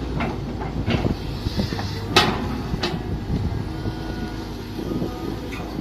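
Mini excavator engine running steadily while digging, with scattered knocks. The loudest knock comes about two seconds in, and another follows just under a second later.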